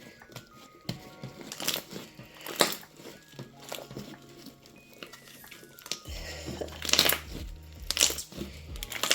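Fluffy shaving-cream slime being squished and pulled by hand as it picks up sprinkles, giving short crinkly, crackling squishes, the loudest about seven and eight seconds in. Background music with short plucked notes plays throughout, and a low bass note comes in about six seconds in.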